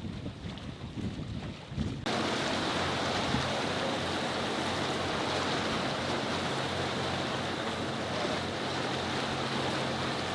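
Sailing ketch under engine at sea: a steady rush of wind on the microphone and water, over a low, steady engine hum. About two seconds in the noise jumps up abruptly and stays loud.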